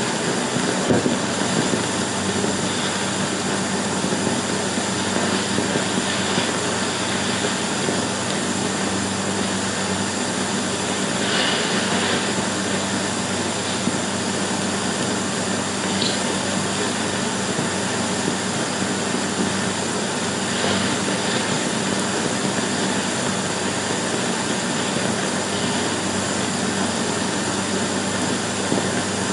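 A steady rushing noise with a low hum on an old 16mm film soundtrack, rising in faint swells now and then.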